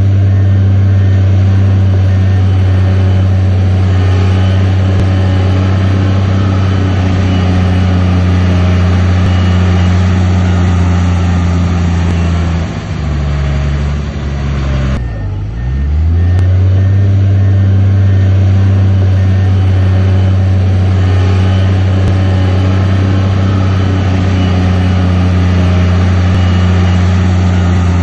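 Heavy diesel engine of earthmoving machinery running hard and steadily. About halfway through it eases off briefly, then revs back up to the same steady pitch.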